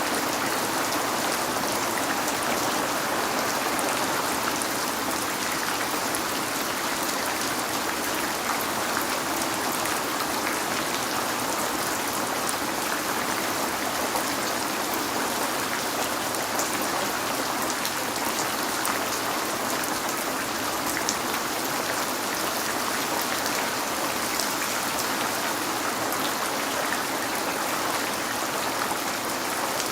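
Steady rain falling on a window: an even hiss with scattered small ticks of single drops striking.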